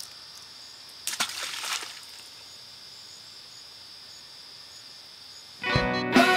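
A person splashing into a pond about a second in, a short burst of sloshing water, over a steady high chirring of insects. Music starts near the end.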